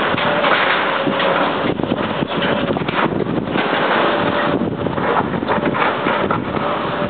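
Heavy diesel equipment, a wheel loader and an excavator, running while clearing building rubble, under a loud, steady rushing hiss.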